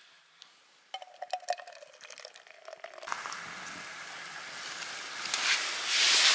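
Beer poured from a can into a stainless-steel-lined mug. It splashes into the empty metal cup with a ringing tone at first, then becomes a steady fizzing pour, loudest near the end as the foam head rises.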